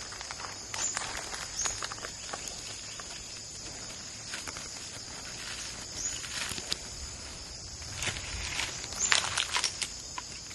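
Footsteps crunching irregularly over dry leaves and brush, heaviest near the start and again near the end, over a steady high-pitched drone.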